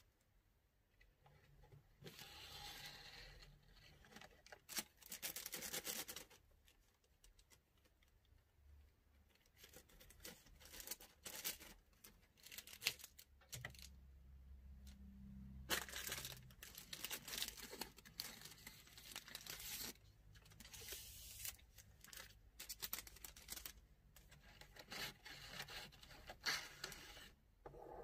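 Faint rustling and crinkling of a plastic bag and a bundle of incense sticks being handled and counted, with light clicks of the sticks, in irregular spells with quiet gaps between.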